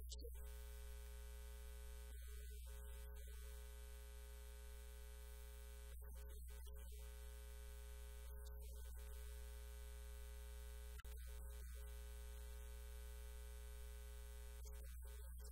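Steady electrical mains hum with a buzz of overtones from the sound system, faint and unchanging, with a single small click about eleven seconds in.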